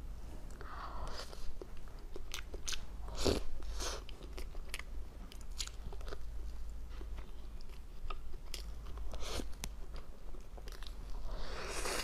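Close-up crunching and biting of frozen basil-seed ice eaten off a spoon: a run of sharp, separate crunches and crackles, with a longer, softer sound about a second in and again near the end.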